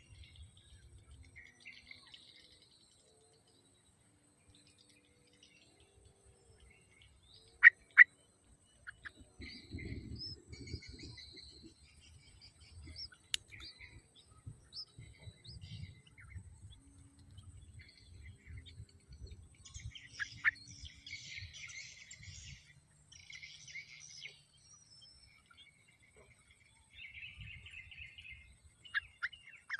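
Yellow-vented bulbuls chirping: scattered short calls, two loud sharp chirps about eight seconds in, and a stretch of rapid scratchy chirping around twenty seconds in, over low rustling thuds.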